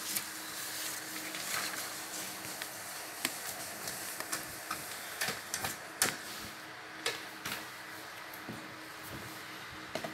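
Baby sulcata tortoise biting and crunching dry pellets: irregular sharp crunches and clicks, the loudest about six seconds in, over a steady faint hiss.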